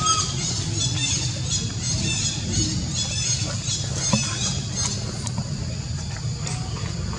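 Baby macaque giving rapid, high-pitched distress squeals, several a second: the calls of an infant held by a monkey from another troop, away from its mother. The calls thin out about five seconds in, over a steady low rumble.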